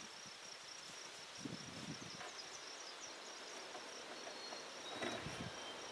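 Quiet outdoor ambience: insects chirping faintly in a high, repeating trill, with a few soft rustles.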